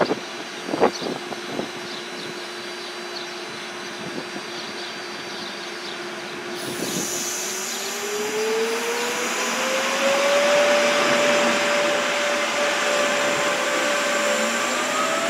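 Electric suburban train pulling away: a steady whine that starts rising in pitch about seven seconds in and levels off, with a second whine climbing near the end, over growing wheel and air hiss. A few knocks come about a second in.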